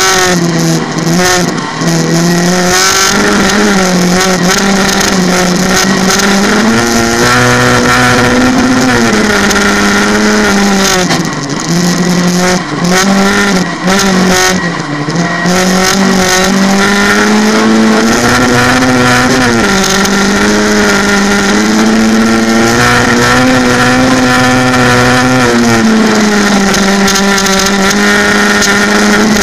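Volkswagen Beetle race car's Volkswagen Golf engine, heard from inside the cabin, running at high revs under hard driving. The engine note climbs and falls again and again, with brief dips where the revs drop away, longest about halfway through.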